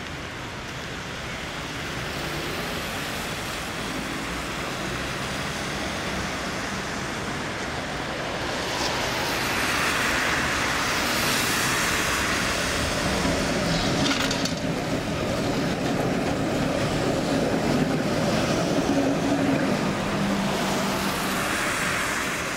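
A V3A-93 articulated tram approaching along the track, its running noise growing steadily louder as it nears, with road traffic passing alongside.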